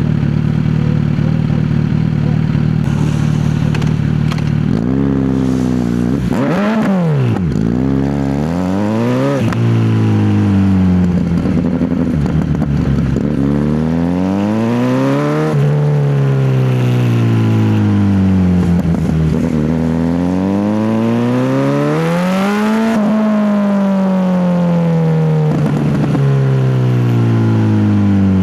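Kawasaki Z900 inline-four engine idling, then pulling away: the revs rise and fall a few times, with several long climbs under acceleration each followed by a falling note as the throttle closes.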